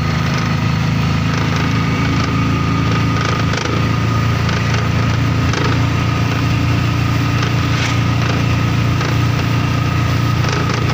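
Auto-rickshaw engine running steadily on the move, heard from inside the cabin: a loud low hum with a steady high whine and light rattles.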